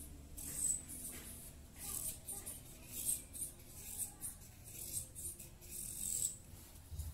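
Felt-tip marker scratching in short strokes on folding paper while tracing around a foot, with a few brief high squeaks. The marker seems to be running dry.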